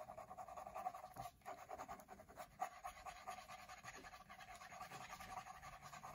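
Kaweco AL Sport mechanical pencil's 0.7 mm graphite lead hatching on sketchbook paper: a faint, rapid scratching of quick back-and-forth shading strokes, with a brief pause about a second in.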